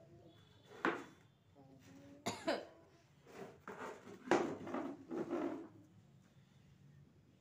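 A woman sneezing several times in a row, with short sharp bursts, a quick double one about two seconds in and the loudest about four seconds in.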